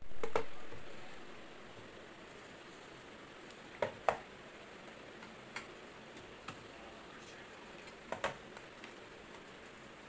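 Light plastic clicks and taps as plastic jam tubs are set down into a plastic refrigerator door shelf: a few scattered knocks, with two quick pairs about four and eight seconds in. The last of the intro music dies away in the first second or so.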